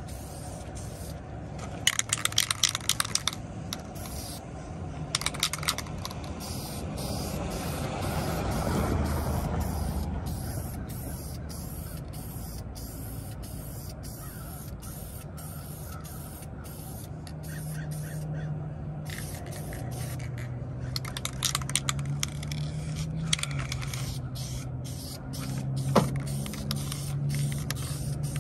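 Aerosol spray-paint can spraying black paint onto plastic trim in several short bursts of hiss, over a low steady hum.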